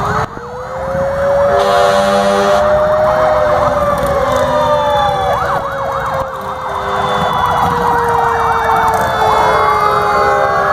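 Several emergency-vehicle sirens sounding at once, long rising and falling wails overlapping with faster yelping warbles, with a horn blast of about a second near the start.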